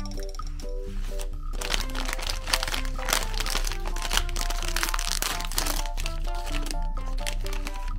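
A shiny plastic ice cream bar wrapper crinkling and crackling as it is torn open and peeled off the bar. It starts about a second and a half in and stops near the end, over background music.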